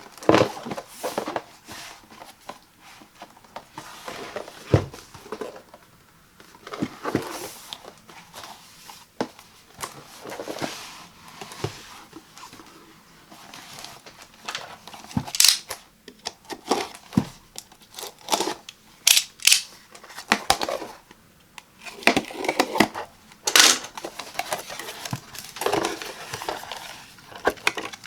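Packaging of a handheld vacuum being handled and opened: irregular taps, scrapes, tearing and crinkling of cardboard and plastic, with brief pauses between them.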